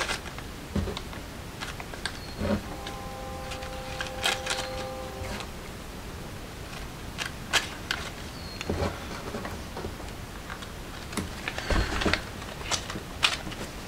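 Scattered light clicks and taps of handling, with a steady tone held for about two and a half seconds starting about three seconds in.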